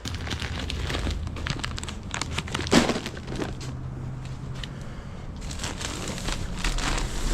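Crinkling and clattering handling noise, with a sharp knock about three seconds in.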